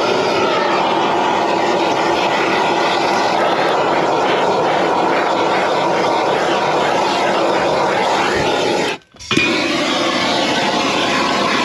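Hand-held MAPP gas torch burning with a steady, loud rushing roar as its flame is played over freshly poured bilge tar to melt it smooth. The roar drops out for a moment about nine seconds in, then resumes.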